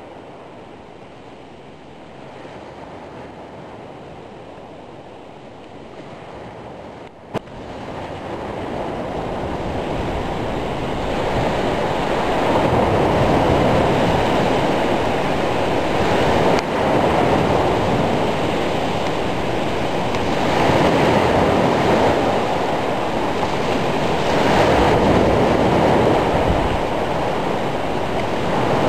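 Rough sea in a storm: waves breaking and surging, with wind. It is quieter at first, has a brief sharp click about seven seconds in, then grows louder and stays loud with slow swells.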